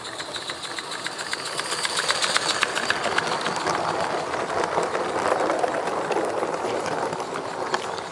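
Live-steam 16mm-scale garden railway train passing close by: rapid clicking of its wheels over the track, with a rolling rumble. It grows louder as the train approaches, is loudest as the coaches roll past, and stops abruptly near the end.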